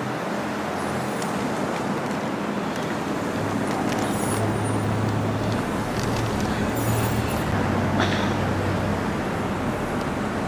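Street traffic noise: a steady wash of road noise with a vehicle engine running close by, its low hum swelling a little in the middle.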